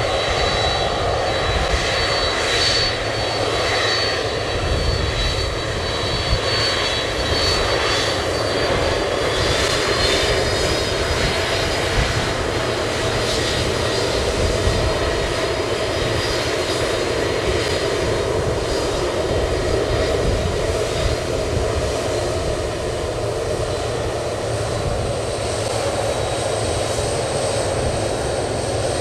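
Boeing 767-300ER's General Electric CF6-80C2 turbofans running at taxi power as the airliner rolls past close by: a steady jet rumble with a high fan whine. A second, higher whine joins near the end.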